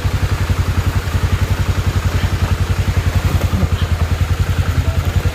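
Single-cylinder motorcycle engine running at a steady low speed, its exhaust giving an even, rapid pulsing beat.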